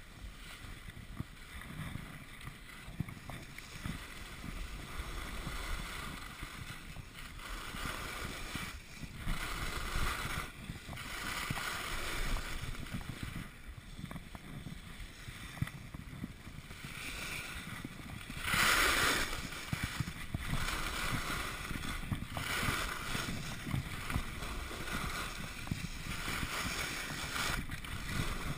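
Skis hissing and scraping over packed snow, swelling and fading with each turn, with one louder, longer scrape about two-thirds of the way through.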